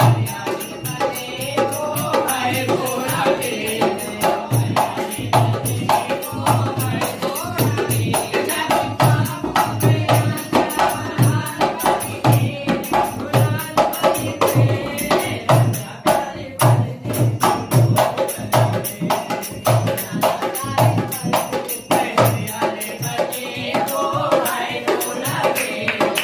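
Desi dance music: singing voices over a steady drum beat, with jingling percussion.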